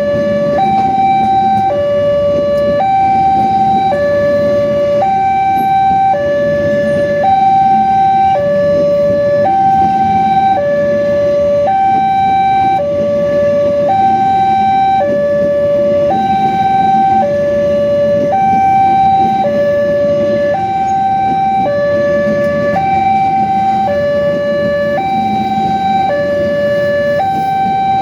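Railway level-crossing warning siren sounding a steady two-tone alarm, switching between a higher and a lower note about once a second, the signal that a train is approaching and the crossing barrier is down. A steady low rumble runs underneath.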